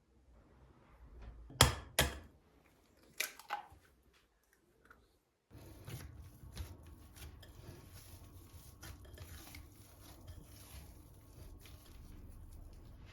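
Kitchen preparation handling sounds: a few sharp clacks in the first few seconds, then, after a brief gap, a run of small clicks and snips over a steady hum.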